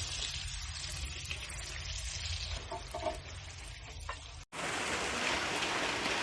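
Chicken frying in hot oil, a steady crackling sizzle. The sound cuts off for an instant about four and a half seconds in and comes back brighter and denser.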